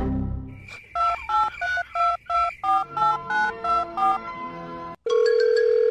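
A melody of short electronic beeps, about four notes a second, like phone keypad tones, which stops about 4 s in; after a brief gap a loud, steady held electronic tone starts about 5 s in.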